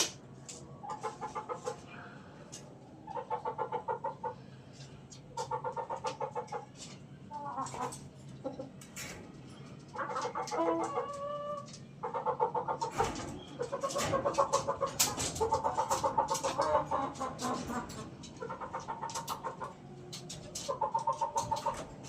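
Chickens clucking in repeated bouts of rapid pulses, about one every two seconds, with sharp small clicks in between and a thicker cluster of clicks in the middle.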